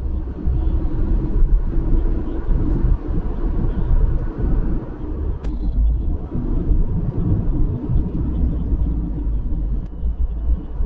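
A motor vehicle's engine running, with a heavy, uneven low rumble.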